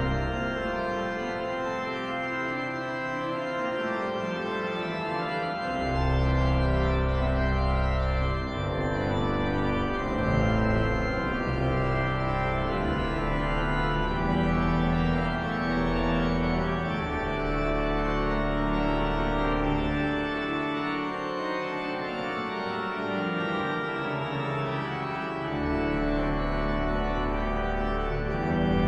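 Rieger pipe organ playing held chords, with deep pedal notes coming in and dropping out several times.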